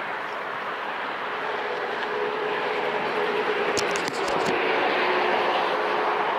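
Steady rush of wind and city traffic picked up by an action camera on a moving bicycle, with a humming tone from a passing vehicle from about a second and a half in. A quick run of sharp clicks comes about four seconds in.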